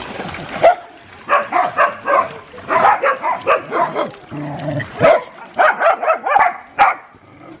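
Dogs barking and yipping, many short barks in quick runs with brief pauses between them. A hiss at the start cuts off suddenly.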